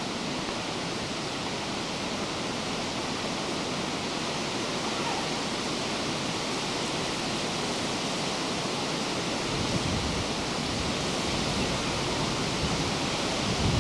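A steady, even rushing noise, with a low rumbling that comes in about two-thirds of the way through and grows toward the end.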